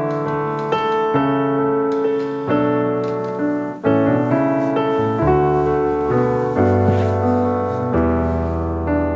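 Background piano music: a gentle keyboard melody over held chords and a bass line, changing every second or so.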